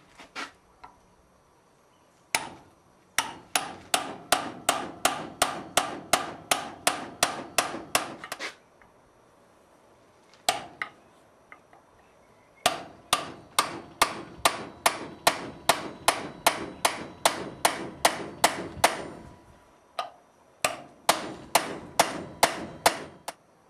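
Hand hammer driving a cold chisel into the edge of a hole in a steel plate, chipping the metal away. The blows are sharp, ringing strikes in three quick runs of about four a second, with a single blow between the first two runs.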